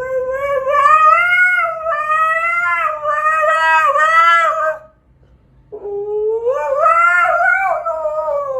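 A dog howling ("singing") on cue: one long wavering howl that breaks off about five seconds in, then a second long howl a moment later.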